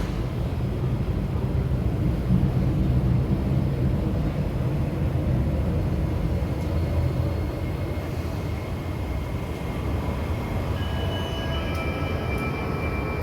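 Metro train running with a steady low rumble, with thin, steady high whining tones joining about eleven seconds in.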